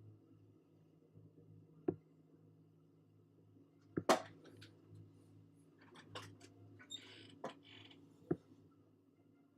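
Faint steady low hum with scattered sharp clicks and knocks, the loudest about four seconds in and several more between six and eight seconds.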